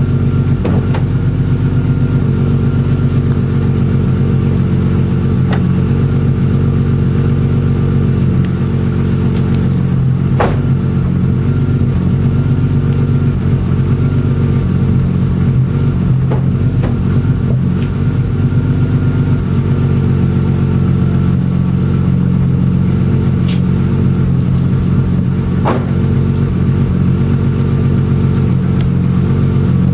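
BMW E36 M3 straight-six idling steadily through a Supersprint racing exhaust (headers, non-resonated mid pipes and racing muffler), heard close at the twin tailpipes. A few sharp ticks stand out over the idle now and then.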